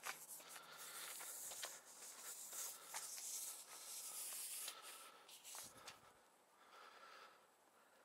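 Faint rubbing and handling noise of a Festool dust extractor's power cable being pulled out and laid along for measuring, with a few light clicks. It dies down after about five seconds.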